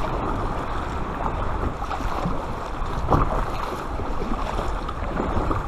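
Paddle strokes of an Aqua Marina Betta inflatable kayak: the blades dip and pull through calm sea water, which washes along the hull, with wind on the microphone. One stroke is a little louder about three seconds in.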